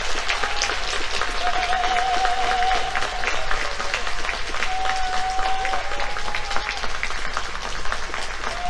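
Audience applauding steadily, a dense patter of many hands clapping, with a few drawn-out tones heard over the clapping.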